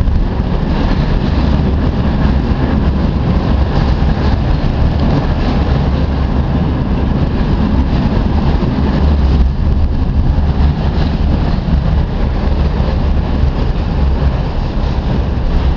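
Tatra T6B5 tram running along the track: a steady, loud rumble of wheels rolling on the rails.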